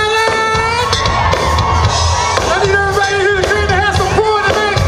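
Live band music playing loudly, held melodic notes over a steady low beat, with crowd noise and cheering mixed in.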